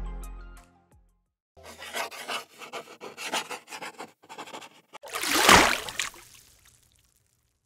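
A sketching sound effect: quick, irregular scratchy strokes of drawing on paper. About five seconds in comes a single whoosh that swells and fades, the loudest sound here. A music track ends at the very start.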